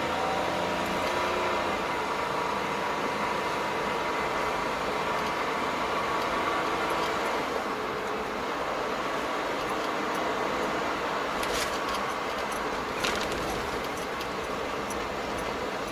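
Car driving on a town road, heard from inside the cabin: steady engine and tyre noise, with a short click about thirteen seconds in.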